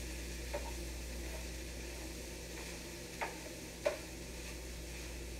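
Chicken and shrimp fried rice sizzling in a frying pan as a spatula stirs it, with a few clinks of the spatula against the pan, the loudest about four seconds in.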